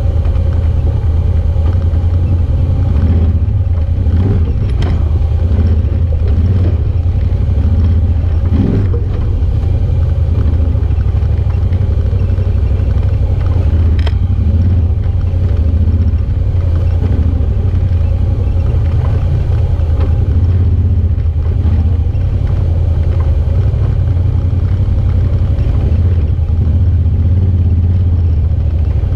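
Side-by-side UTV engine running steadily at low speed, heard from on board as it crawls through a shallow rocky creek bed, with a couple of brief sharp knocks.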